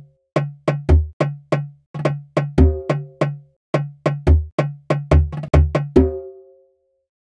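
Sampled percussion loop playing back in GarageBand: short, sharp drum hits about three to four a second, most with a low pitched tom-like tone, and a deep kick drum under some of them. The pattern stops about six seconds in, the last hit ringing out briefly.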